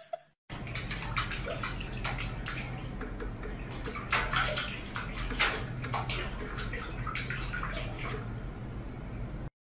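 Tap water running into a stainless steel sink and splashing as a cat paws at it, over a steady low hum. It stops abruptly near the end.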